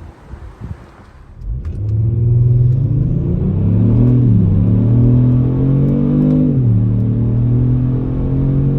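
Kia Stinger's 3.3-litre twin-turbo V6, on its stock exhaust with Injen intakes, accelerating hard after a quieter moment. The note climbs, drops briefly at an upshift, climbs again, then drops at a second upshift and holds steady.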